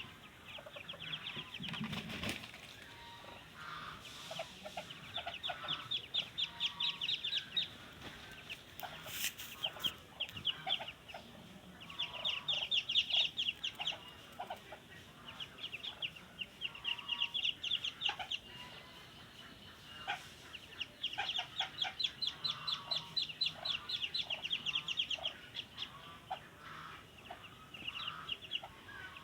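Ducklings peeping in fast runs of high, short peeps, several runs with short pauses between, with some lower short calls mixed in.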